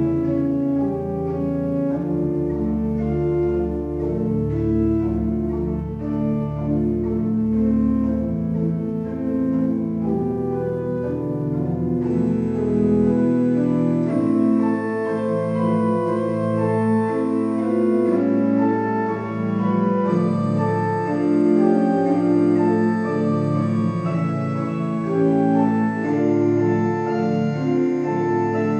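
Björgvin Tómasson pipe organ playing slow held chords with a deep pedal bass, which drops out about halfway through, leaving the upper voices sounding alone.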